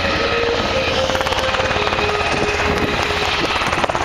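Army Black Hawk helicopter passing low overhead: the main rotor blades beat fast and steadily over a constant turbine whine.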